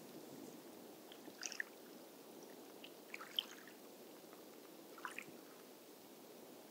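Seawater draining out of a seaweed thicket at ebb tide: a faint, steady low hiss with scattered small bubbling pops and crackles. The pops come in clusters about one and a half, three and five seconds in.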